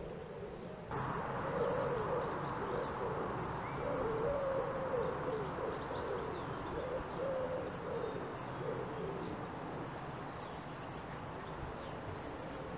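A dove cooing in a run of low, wavering calls, with faint high chirps of small birds over a steady hiss that grows louder about a second in.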